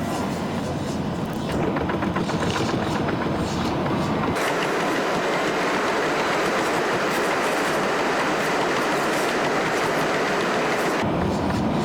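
Vehicle tyres running over the Mackinac Bridge's steel deck. There is rhythmic clacking for about the first four seconds, then a louder, steady hum from the open steel grating.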